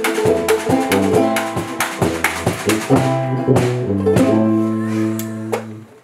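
Small acoustic band of tuba, acoustic guitar, banjo, and washboard with snare drum playing the last bars of a song. The tuba holds low notes under the strummed strings and sharp percussion hits. The band ends on a long held chord that stops about five and a half seconds in.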